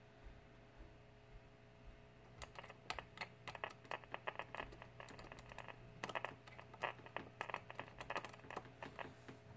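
Faint, irregular clicking and crackling in quick clusters as a screwdriver's metal tip is touched across contacts in the chassis of a 1951 Silvertone tube clock radio, over a steady low hum. The crackling starts about two seconds in.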